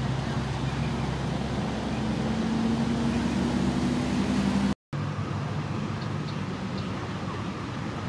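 Steady hum of a motor engine, its pitch rising slightly partway through, cut off abruptly about five seconds in. A similar engine hum resumes straight after the break.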